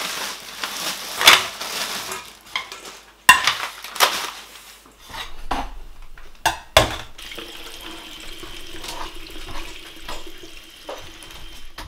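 Okra pods tipped from a plastic bag into a stainless-steel colander, with rustling and sharp metallic clatters and knocks. About seven seconds in, a kitchen tap starts running steadily onto the okra in the colander in a steel sink.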